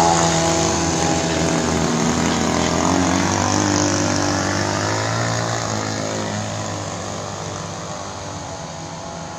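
Radio-controlled boat powered by a two-stroke grass-cutter (brush-cutter) engine running at speed, its pitch rising and falling with the throttle. The sound fades steadily over the second half as the boat moves away.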